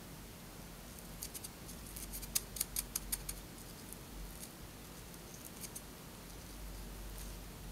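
Scissors snipping a clump of elk hair: a quick run of faint, sharp clicks between about one and three seconds in, then a few single clicks later.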